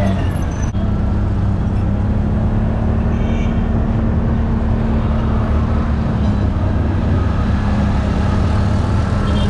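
Auto-rickshaw (tuk-tuk) engine running steadily under way, heard from inside its open cabin, with road and traffic noise around it.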